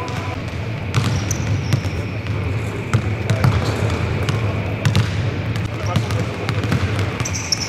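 Basketballs bouncing on a hardwood court in a large arena, irregular thuds and knocks from several balls at once, with voices in the background.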